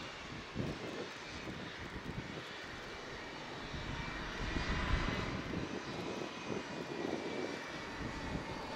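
Boeing C-17A Globemaster III's four Pratt & Whitney F117 turbofan engines running as the jet rolls along the runway: a steady rushing jet noise with a faint whine, getting somewhat louder about halfway through.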